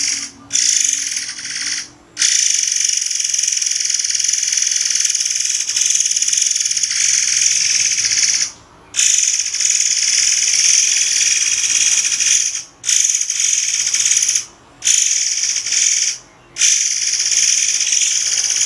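Murai air (forktail) giving shrill, high-pitched hissing calls in long drawn-out stretches, broken by short pauses.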